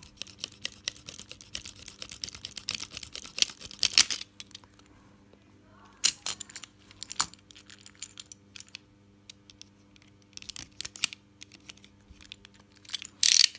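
Snap-off utility knife cutting and scraping at hard plastic: a quick run of small clicks and scrapes for about four seconds, then sparser, sharper clicks, with a loud one about six seconds in and another near the end.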